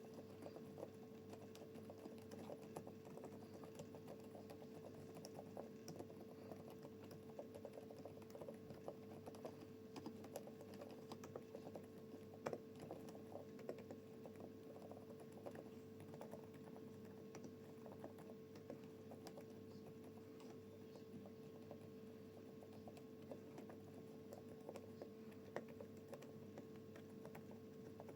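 Quiet typing on an EPOMAKER TH108 mechanical keyboard with Sea Salt Silent switches: a dense, continuous run of soft, muted keystrokes with an occasional louder tap, over a faint steady hum.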